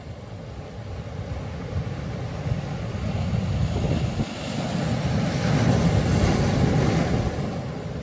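Ocean waves breaking on a shore of black lava boulders: a steady low rumble of surf, with the rush of one wave swelling to a peak about six seconds in and then falling away.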